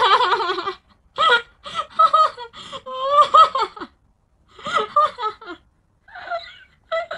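A high-pitched voice making a quick run of short, wavering, sliding calls, loudest at the start and broken by brief pauses.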